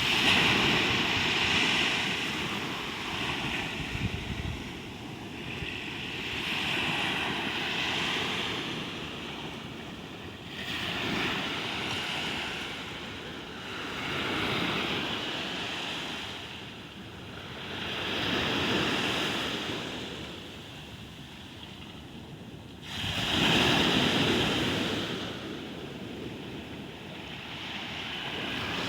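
Ocean waves breaking and washing up the shore, the surf swelling and falling back every few seconds. One louder wave crashes in suddenly about two-thirds of the way through.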